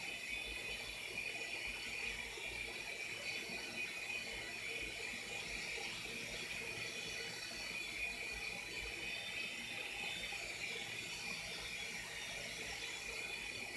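Small electric motors and rotors of a V-Max HX-701 toy RC helicopter whining steadily in flight, the pitch wavering slightly.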